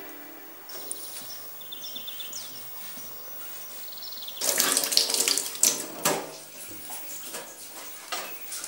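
Water running from a kitchen tap into the sink, splashing and breaking up, starting about four and a half seconds in. Faint bird chirps come before it.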